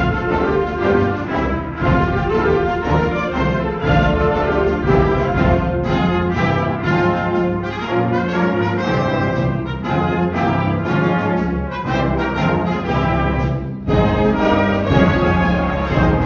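High school concert band playing live, woodwinds and brass holding full chords. About 14 seconds in the sound drops briefly and the full band comes back in louder.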